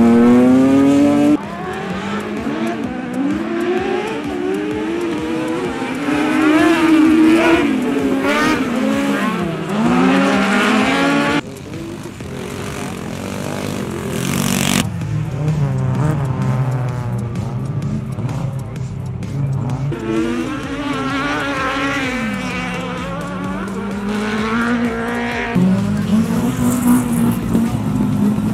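Autocross race cars' engines revving hard on a muddy dirt track, their pitch repeatedly climbing and dropping through gear changes. The sound switches abruptly from one car to the next every few seconds.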